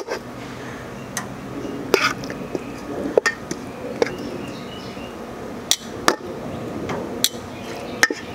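Stainless steel tongs clinking against a metal mixing bowl and the grill grate as chicken wings are picked up and laid down: sharp, irregular clinks about once a second.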